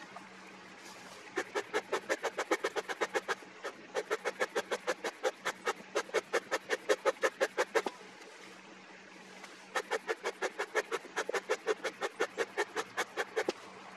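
Hive smoker's bellows pumped quickly by hand, rapid puffs of air about five a second in three runs of a few seconds each, working up smoke while the wood-pellet fuel is being lit.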